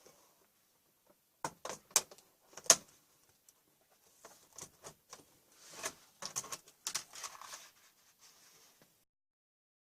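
Sharp plastic clicks and short scrapes as a laptop is being taken apart by hand: a few loud clicks early, then a busier run of clicks and scraping in the middle.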